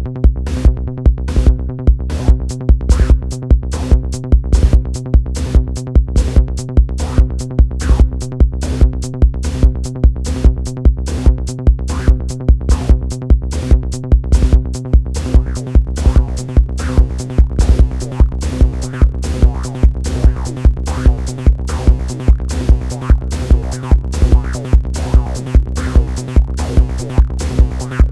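Techno-style electronic music from a Roland TR-6S drum machine and Moog synthesizers: a steady four-on-the-floor kick of a little over two beats a second under a held low synth drone, with filter sweeps coming in about halfway through.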